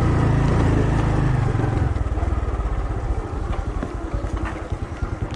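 Motorbike engine running steadily, then dropping to a low, pulsing idle about two seconds in.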